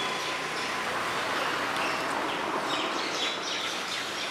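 Outdoor night ambience by a road: a steady hiss of background noise, joined about halfway through by a run of short, high chirps repeating several times a second.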